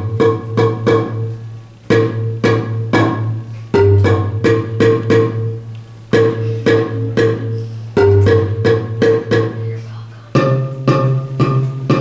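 Bass marimba struck with mallets, playing a repeating low bass pattern of wooden-bar notes. The phrase starts again about every two seconds and steps up to a higher bass note near the end.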